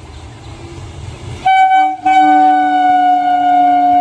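Electric multiple unit local train's horn: a short blast about a second and a half in, then a long steady blast from about two seconds, over the low rumble of the approaching train.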